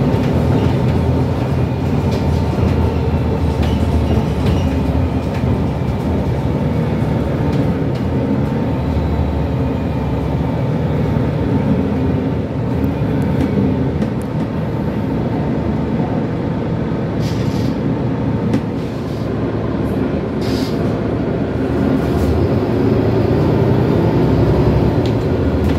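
Cabin noise inside a moving MAN A22 Euro 5 diesel city bus: a steady engine and road rumble, with a few short rattles partway through.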